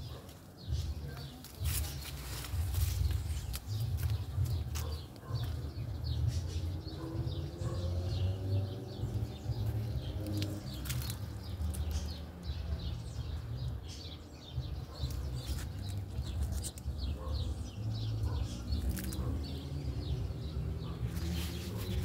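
Acerola leaves and twigs rustling and crackling close to the microphone as the phone is pushed through the bush, over a steady low rumble on the microphone.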